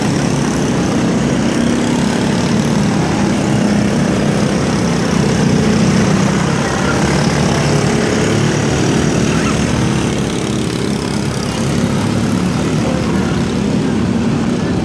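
Engines of several microstock race cars running on a dirt oval, a steady loud drone whose pitch wavers as the cars circle.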